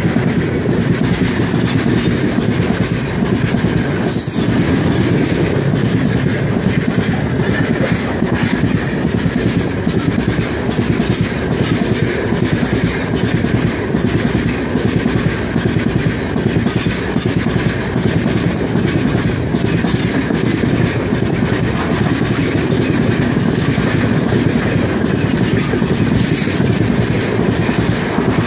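Heavy freight train of open-top gondola wagons rolling past close by: a steady loud rumble of steel wheels on rails with a running clickety-clack of wheelsets over the rail joints. Near the end the last wagon goes by.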